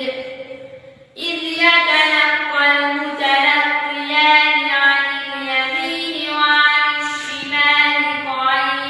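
A boy's voice reciting the Quran in melodic tajweed style, with long held, ornamented notes; he pauses for breath about a second in, then carries on.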